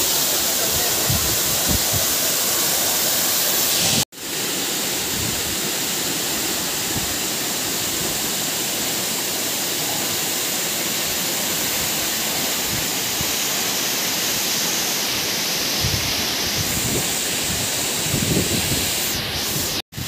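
Waterfall: falling water rushing in a steady, even roar. The sound cuts out for an instant about four seconds in and comes back slightly quieter, and it cuts out again briefly near the end.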